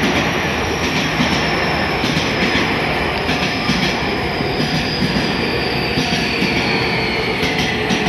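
Tobu Tojo Line electric commuter train passing close by: a steady rumble of wheels on the rails, with a thin, high wheel squeal that slowly falls in pitch.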